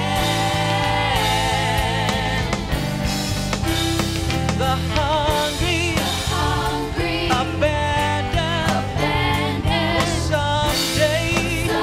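Live worship band playing a song: a group of singers with wavering held notes over keyboards, guitar, bass and drums.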